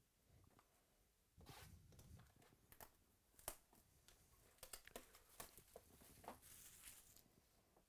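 Plastic shrink wrap being torn and peeled off a sealed box of baseball trading cards: faint crinkling with small crackles and snaps, starting about a second and a half in.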